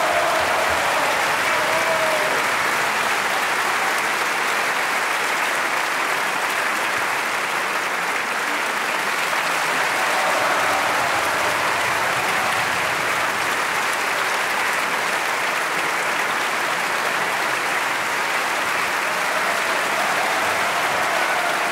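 Large theatre audience applauding steadily and evenly, a dense unbroken clatter of many hands.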